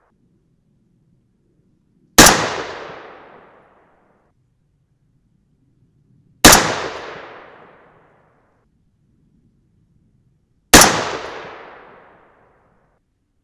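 Three unsuppressed .223 AR-15 rifle shots from a 20-inch White Oak Armament Predator barrel, about four seconds apart. Each crack trails off over a second or two.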